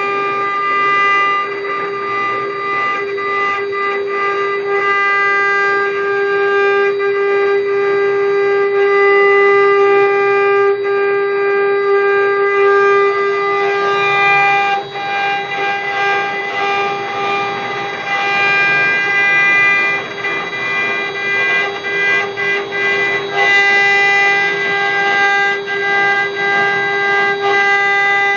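Multi-spindle CNC router carving wooden columns: the spindles run with a steady whine, over a rough, crackling noise of the bits cutting the wood.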